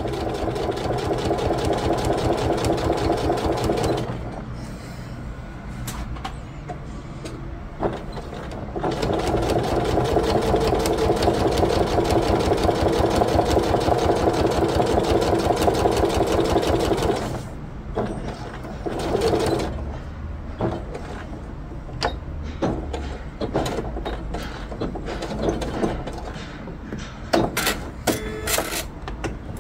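Domestic electric sewing machine stitching quilted synthetic fabric, its needle running in a fast, even rhythm. It sews in two spells, about four seconds and then about eight seconds from around nine seconds in, and goes quieter between them. In the last third only scattered faint clicks are heard.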